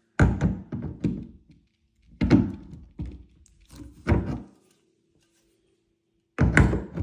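Hammer striking the tension pin of a fire door hinge, metal on metal, driving it out: sharp knocks with a short ring, a few in a row, then a pause of about two seconds before more strikes near the end.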